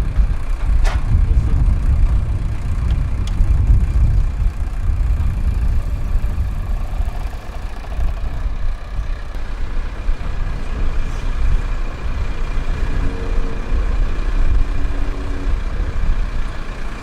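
Wind buffeting the microphone, a loud, gusting low rumble, with a brief click about a second in and a few short faint tones near the end.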